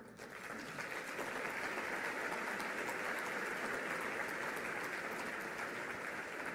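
A large audience applauding, the clapping swelling up within the first second and then holding steady.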